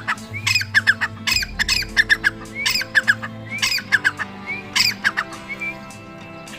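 Partridge giving a harsh, repeated call about once a second, each call a short rising note followed by rasping strokes, fading near the end. Background music plays underneath.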